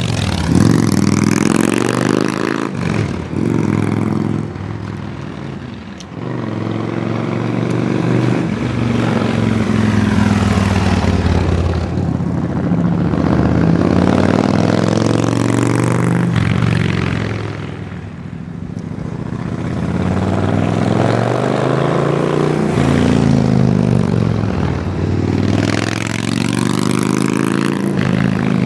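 Yamaha Drag Star 1100's air-cooled V-twin running through its exhaust, its pitch rising and falling again and again as the engine is revved and eased off, with two clear dips in loudness.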